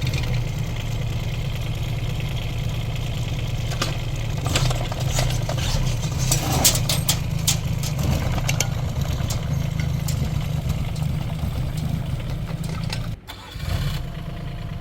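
Mini excavator's diesel engine running steadily, with scattered sharp metallic clicks and knocks in the middle. The sound drops out abruptly for a moment near the end.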